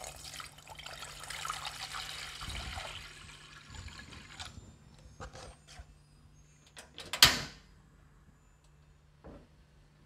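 Water pouring in a steady stream into an empty stone-coated saucepan for about four and a half seconds, then stopping. A few light knocks follow, and one sharp, loud knock comes about seven seconds in.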